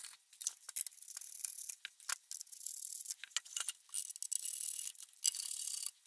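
Aluminium sheet-metal panel of a benchtop multimeter's case being worked loose and slid by hand: irregular clicks and light metallic rattles, with a few stretches of high scraping lasting up to about a second.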